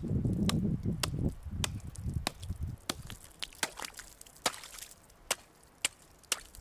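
Hatchet chopping through lake ice to open a hole: a series of sharp chops, about two a second, the first few seconds' blows heavier and duller.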